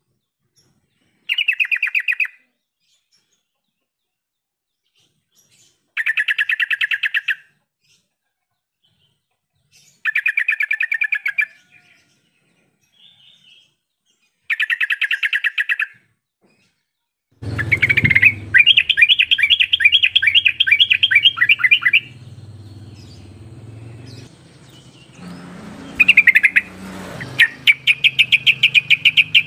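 Yellow-vented bulbul (trucukan) song: short bursts of fast chattering notes, each about a second long, every four seconds or so. From about two-thirds of the way in, a longer chattering phrase over a low hum, then another phrase starting near the end.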